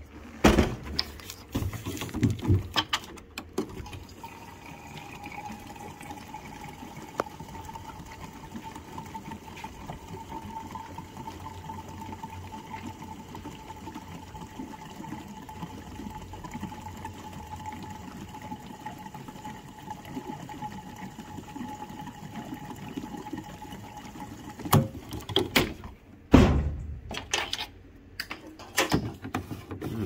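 Gasoline pouring from a gas can's spout into a John Deere GX345 lawn tractor's fuel tank: a steady pouring sound for about twenty seconds with a faint steady tone above it. Knocks and clunks of the can being handled come before the pour and near the end.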